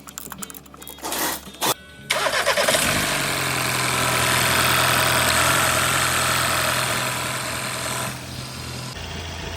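Ford Transit van engine starting about two seconds in, after a few sharp clicks, then running steadily before easing off near the end.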